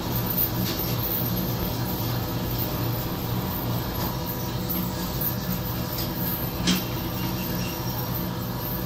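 Steady low machine hum, with a few light taps, the sharpest about two-thirds of the way through.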